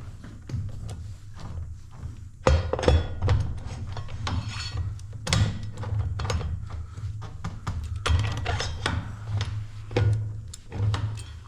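Irregular clinks, knocks and thunks of metal motorcycle parts and hand tools being handled and fitted on the front end, over a steady low hum.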